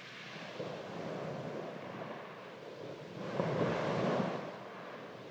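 Waves washing, a steady rushing that swells to its loudest about three seconds in and eases off about a second later.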